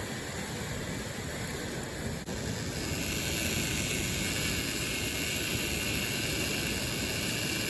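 Fishing drone's rotors whirring steadily over a wash of background noise, growing louder and higher-pitched about three seconds in as it speeds up.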